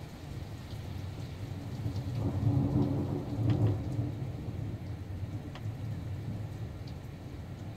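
Thunder rumbling over steady rain. The rumble swells about two seconds in and fades away by about five seconds, with a few sharp drips.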